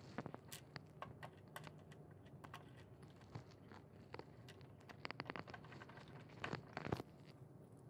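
Faint, scattered small clicks and taps of a screwdriver and screws against the plastic and metal frame of an all-in-one PC being screwed back together, with a quick run of clicks about five seconds in and two louder clicks near the end.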